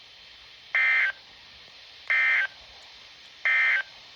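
Emergency Alert System end-of-message signal: three identical short bursts of SAME digital data, a harsh two-tone screech, about a second and a half apart, marking the end of the alert. A faint steady hiss lies between the bursts.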